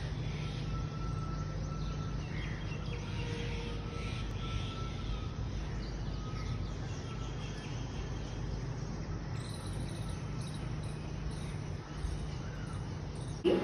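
Outdoor city ambience: a steady low hum of distant traffic and wind, with faint high chirps in the last few seconds.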